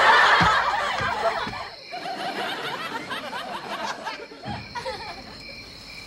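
Studio audience laughing, loudest at the start and dying down over the next couple of seconds into scattered quieter laughter.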